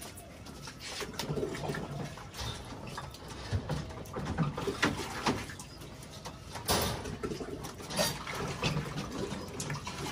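Pigeons cooing, with water sloshing and a few sharp knocks as pigeon drinkers are handled in plastic buckets of water. The two loudest knocks fall near the middle and again a second or so later.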